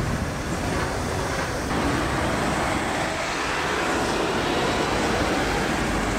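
Steady motor-vehicle noise: engines running and street traffic, with no distinct events standing out.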